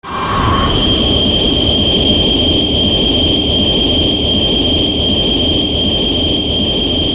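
Heisei Destoroyah monster sound effect: a loud, sustained rumbling rush of noise with a steady high whine over it, starting abruptly.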